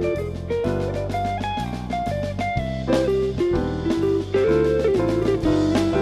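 Background music: guitar over bass and a drum kit with a steady beat.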